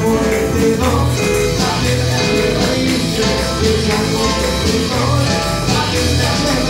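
Live church praise band playing: electric keyboard and drum kit with a steady beat, with a woman singing into a microphone over the band.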